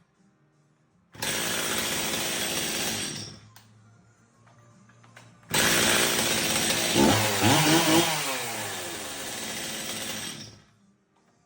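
Stihl MS 270 two-stroke chainsaw running in two bursts, a short one of about two seconds and then a longer one of about five seconds in which the engine pitch rises and falls as it is revved. Each burst starts and stops abruptly.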